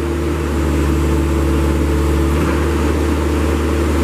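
Kubota engine of a 2014 Princeton PB50 piggyback forklift running steadily, driving the hydraulics as the mast is raised and lowered.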